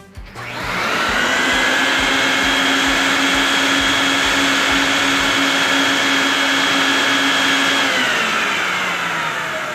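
Vacuum motor beneath a rug-washing table spinning up with a rising whine, running steady as it draws the rinse water down through the soaked rug, then winding down with a falling whine near the end.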